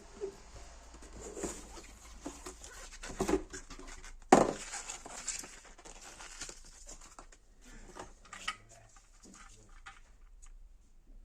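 Irregular handling noises: clicks, taps and rustling, with one sharp knock about four seconds in.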